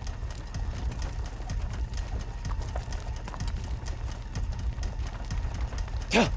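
Horse hooves clip-clopping at a walk on a dirt track, a dense run of irregular knocks with footsteps over a low rumble. A brief loud burst comes near the end.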